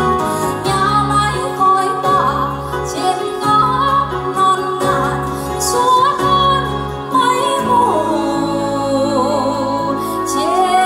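A woman singing into a dB Acoustic 550PRO karaoke microphone over a karaoke backing track, her voice amplified through the mic, with long held notes that waver in pitch.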